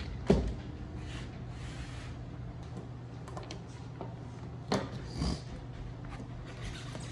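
Steel chain and rubber bicycle inner tubes being handled on a wooden workbench: a sharp knock of chain on the bench a moment in, two more knocks about five seconds in, and soft rustling of rubber between them, over a low steady hum.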